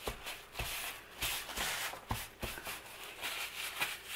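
A crumpled paper towel pressed and rubbed over a freshly glued journal page, smoothing it down, giving soft rustling strokes with a few light taps.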